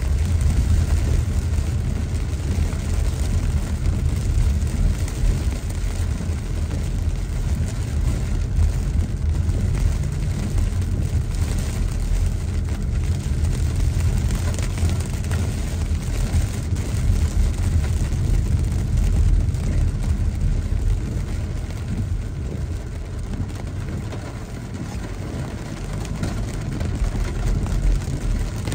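Inside a car driving through heavy rain: a steady low rumble from the car on the wet road, with the hiss of rain on the windshield over it.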